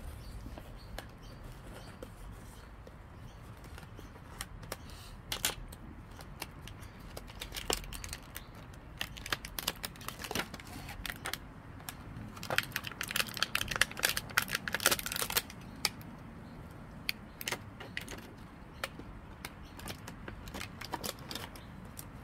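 Hands opening a diecast model car's packaging: scattered clicks and crinkles of plastic and card, busiest for about three seconds past the middle.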